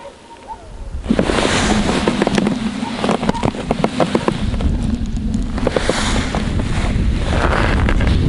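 Close rustling and crackling handling noise as the angler shifts and moves with a body-worn camera, with wind buffeting the microphone. It starts suddenly about a second in, with a low wind rumble added from about halfway.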